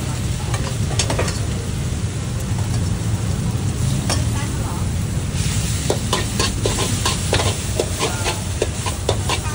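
Rice noodles sizzling in a hot wok while a metal spatula scrapes and clanks against the wok: a few strikes early on, then a quick run of them from about halfway, when the sizzling also grows louder. A steady low rumble runs underneath.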